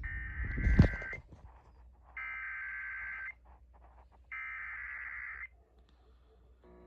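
Emergency Alert System SAME header: three identical bursts of high data tones, each about a second long and about a second apart, the first over the tail of a voice and a sharp click. These digital bursts signal that an alert is breaking into the broadcast.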